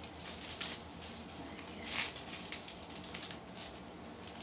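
Clear plastic wrapping crinkling and rustling as it is pulled open by hand, in irregular rustles, the loudest about two seconds in.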